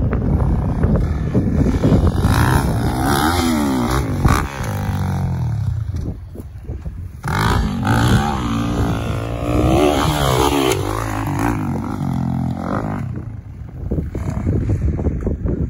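Dirt bike engine revving as it rides a motocross track, its pitch climbing and falling again and again as the throttle opens and closes, fading briefly twice.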